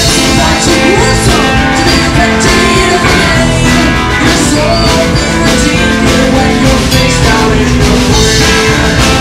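A rock and roll band playing live and loud: two electric guitars, an upright bass and a drum kit.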